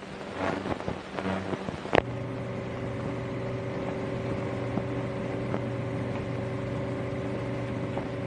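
Old newsreel optical soundtrack: a single sharp click about two seconds in, then a steady hum and hiss with no speech.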